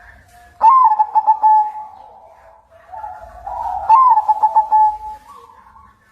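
White-plumaged ('kapas putih') zebra dove, a perkutut, singing its coo: two song phrases about three seconds apart, each a stuttered run of quick notes ending in a held low coo.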